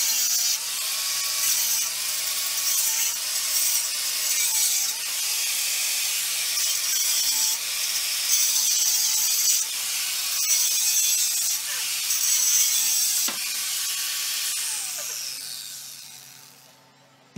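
Angle grinder cutting into ceramic wall tile and the mortar bed behind it, its motor pitch dipping and recovering as it is pressed into the cut. Near the end it is lifted off and spins down.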